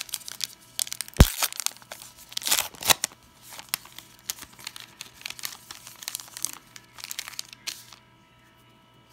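Wrapper of a Topps Heritage baseball card pack being torn open and crinkled by hand: a run of crackly tearing and crinkling, with one sharp snap about a second in, stopping about a second before the end.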